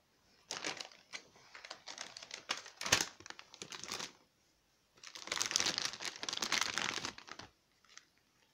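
Thin plastic packaging of a train hygiene kit crinkling as it is handled and opened, in two spells of crackling with one sharp crack partway through the first.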